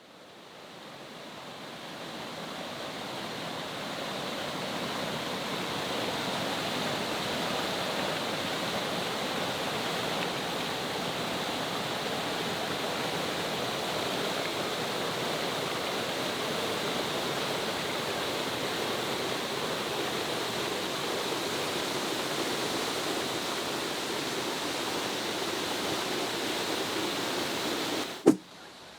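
Waterfall's steady rushing water noise, fading in over the first few seconds and cutting off abruptly shortly before the end.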